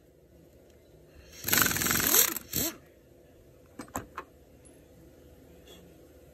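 A tool rattles in a quick burst, about a second and a half in, as the pulley installer is backed off the freshly pressed power steering pump pulley; a few sharp metal clinks follow about four seconds in.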